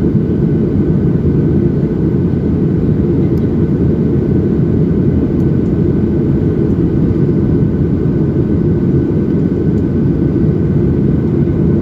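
Steady, loud cabin noise of a Boeing 737-700 under way: the low rumble of its CFM56-7B turbofan engines and rushing air, heard from inside the passenger cabin, with a faint high steady tone above it.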